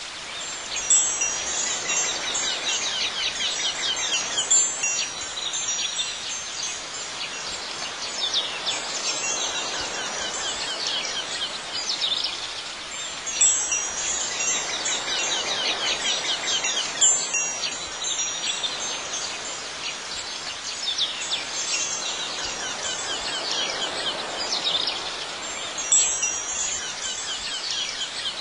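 Wind chimes ringing over a steady outdoor ambience, with a few louder chime strikes standing out. The same pattern of strikes comes round about every twelve seconds, as in a looped ambience track.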